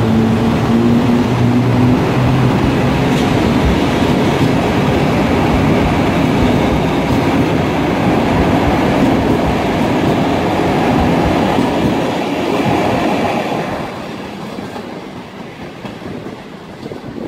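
An electric-locomotive-hauled Intercity passenger train passing close by. The locomotive's steady humming tones drop in pitch and die away in the first two seconds, then the wheel noise of the coaches rolling past runs loud and fades from about three-quarters of the way through as the train moves off.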